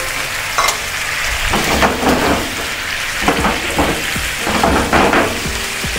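Button mushrooms, garlic and red wine sauce sizzling steadily in a hot nonstick frying pan, with a few short louder sounds over the sizzle.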